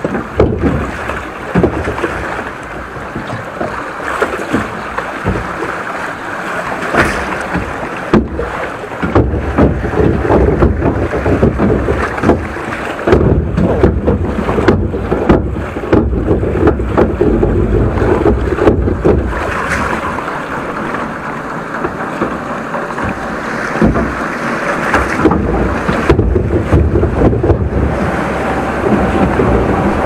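Log flume boat floating along a fibreglass water channel: rushing, splashing water with wind buffeting the microphone and frequent short knocks.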